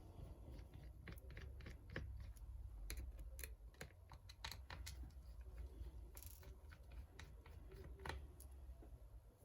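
Faint, irregular small clicks and scrapes of hand tools picking at the shattered glass of an iPad's digitizer, over a low steady hum.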